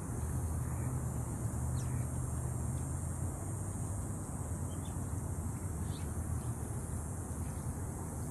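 Steady rushing outdoor background noise with a low rumble, with a few faint, short bird chirps about two, five and six seconds in.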